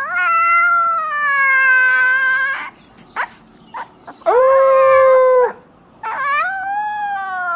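Husky puppy howling: three long, high howls with short pauses between, the first lasting about two and a half seconds and the last rising and then falling away.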